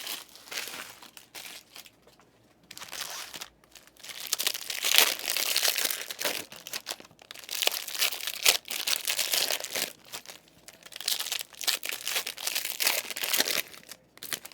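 Plastic wrapping crinkling and tearing by hand in several bursts with short pauses: sealed trading-card packaging being ripped open.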